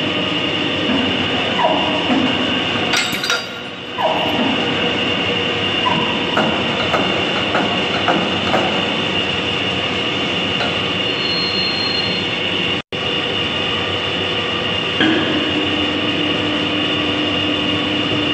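Steady machine-shop din of running machinery, with a few light metal clinks and knocks as heavy lathe parts such as the steady rests are handled. A low steady hum joins in near the end.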